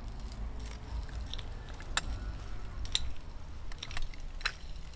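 Light, sharp clicks and taps of a kitchen utensil on a pot, about one a second, over a low steady rumble.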